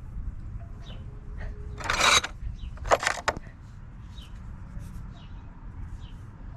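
Hand tools such as files being handled in a toolbox: two short scraping clatters, one about two seconds in and a quick double about three seconds in.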